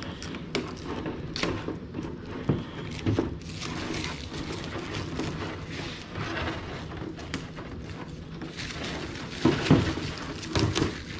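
Clear protective film crinkling and rustling as it is peeled off a painted polycarbonate RC truck body. There are a few handling thumps of the body on the bench, the loudest near the end.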